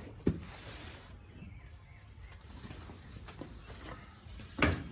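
Faint rustling from boxes and packaging being handled, with a light thump just after the start and a louder thump near the end.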